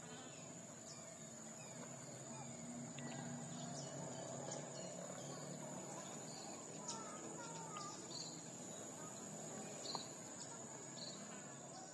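Faint outdoor ambience dominated by a steady, high-pitched insect drone, with scattered short chirps and a low hum underneath.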